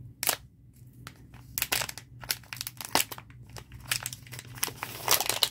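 Small holographic foil bag being torn open and handled, crinkling and crackling in irregular bursts, loudest near the end.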